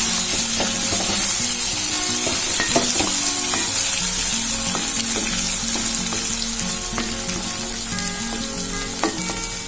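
Stuffed whole baby brinjals sizzling steadily as they fry in oil in a pan, while a spatula turns them over.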